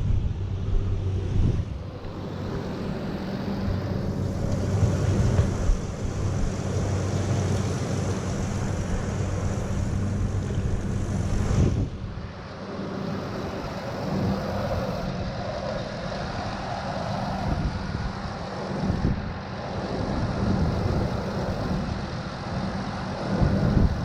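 A motor vehicle engine running steadily with an even hum.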